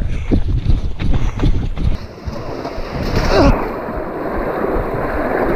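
Irregular knocks and thumps on a body-worn camera while a runner jogs. About two seconds in the sound changes abruptly to a steady rush of wind noise on the microphone and water splashing as runners wade through muddy water.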